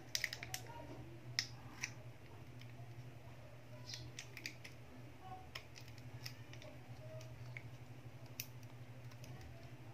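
Faint scattered clicks and taps of plastic and metal as fingers press on and handle an opened Vivo Y11 phone's frame and mainboard while it is put back together, over a steady low hum.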